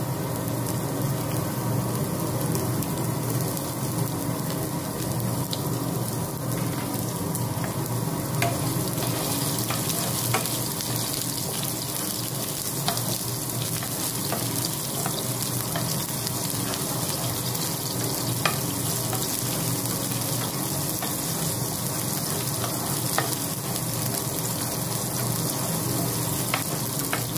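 Sliced onions sizzling in hot oil in a frying pan, stirred with a spatula, with a light click of the utensil against the pan now and then.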